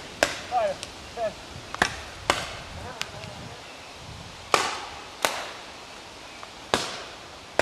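Paintball markers firing single shots: about seven sharp pops at irregular spacing, each trailing off briefly. A faint shout sounds in the first second and a half.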